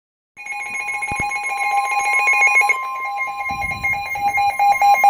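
NOAA Weather Radio emergency alert tones: a loud, steady, shrill alarm tone, mixed with a rapid warbling buzz. It starts about a third of a second in, with a patch of low crackle in the second half. This is the attention signal that opens a severe thunderstorm warning broadcast.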